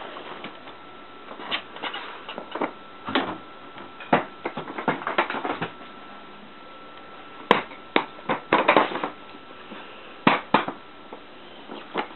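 Irregular clicks and knocks of a small dog playing with tennis balls: its paws scrabbling on a wooden chest and its claws tapping on the floor as it runs, in scattered clusters with short pauses between.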